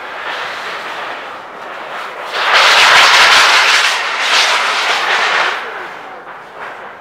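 Crowd applauding, swelling loudly about two and a half seconds in and dying away near the end.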